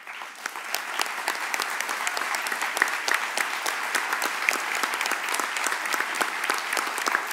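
Audience applauding: many hands clapping in a dense, steady patter that builds up over the first second.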